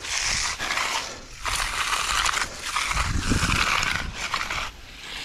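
Hand tools brushing and scraping across the surface of freshly poured concrete, in repeated strokes about a second long with short breaks between them.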